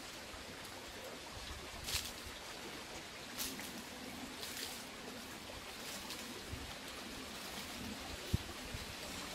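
Footsteps crunching and rustling in dry fallen leaves, a few short crunches a second or so apart, over a steady outdoor background hiss, with one sharp soft knock near the end.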